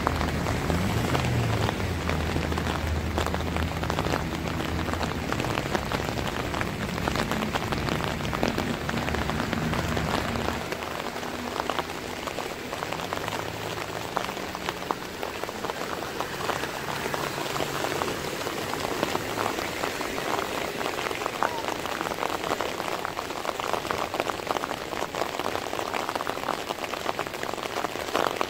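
Heavy rain pouring down, a dense steady patter of drops. A vehicle engine runs low underneath for the first ten seconds or so, then fades.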